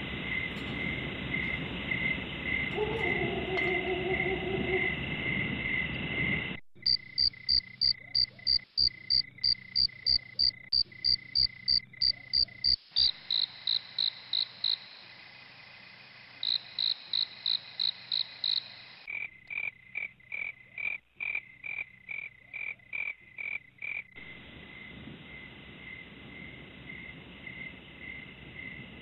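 Night ambience of chirping crickets and croaking frogs, pulsing in even rhythms of about two to three chirps a second. The chorus switches abruptly to a different, louder and higher chirping about a quarter of the way in, and changes again near the middle and about two-thirds through.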